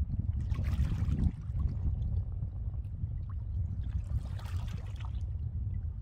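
Small sea waves washing and lapping, swelling into a hiss twice (about a second in and again around four seconds), over a steady low rumble.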